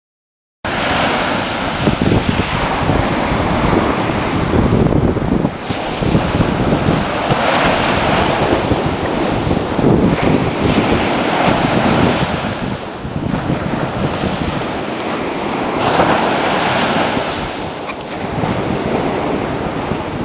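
Ocean surf breaking and washing up the beach, swelling and easing every few seconds, with wind buffeting the microphone. It starts abruptly about half a second in.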